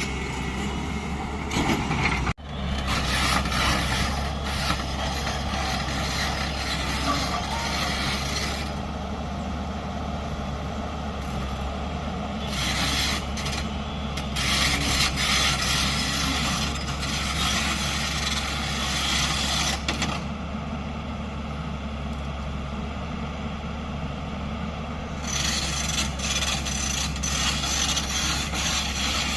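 Diesel engine of a JCB 3DX backhoe loader running steadily while it digs and loads mud. Scraping, rubbing noise from the bucket and soil grows and fades over the engine's hum.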